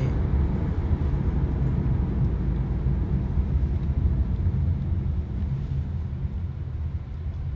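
Steady low rumble of a car's road and engine noise heard inside the cabin, easing a little about five seconds in.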